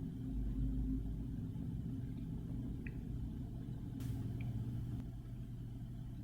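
Low steady rumble, with a faint click about four seconds in.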